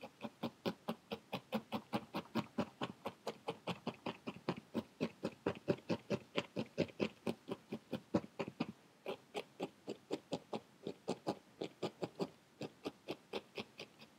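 Felting needle stabbing rapidly into a ball of wool roving on a foam felting pad: a steady run of soft, sharp punches, about four or five a second, compacting the loose core wool. The stabbing pauses briefly a little under nine seconds in and again around twelve seconds.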